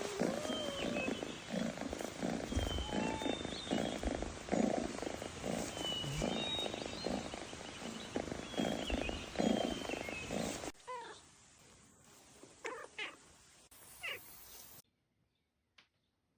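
A cat purring in an even rhythm of about two pulses a second, with faint short high chirps over it. It cuts off abruptly about eleven seconds in, leaving a few quiet squeaks and then near silence.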